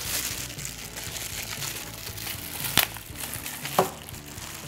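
Clear plastic packaging crinkling and rustling as it is unwrapped by hand, with a couple of sharper crackles near the end.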